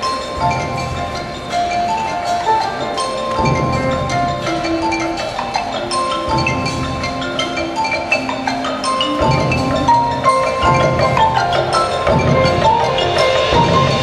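Marching band playing live, with front-ensemble mallet percussion (marimba, xylophone, glockenspiel) carrying a ringing melody of struck notes. Fuller low chords come in and drop out every two to three seconds beneath it.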